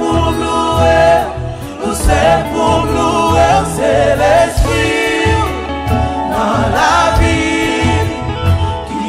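Live gospel praise-and-worship singing: a lead singer with a backing choir, over band accompaniment with drums and bass.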